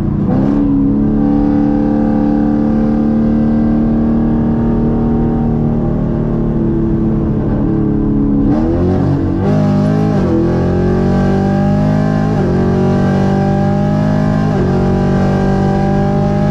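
Engine of a sixth-generation Camaro 1LE, tuned on E85 with full bolt-ons, heard from inside the cabin. About half a second in it revs up sharply, typical of a downshift, then holds at high revs. From about eight and a half seconds the pitch climbs and drops several times as it pulls through the gears.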